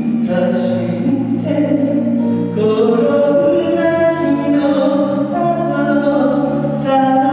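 Live song: singing with long held notes over strummed acoustic guitar and electric bass.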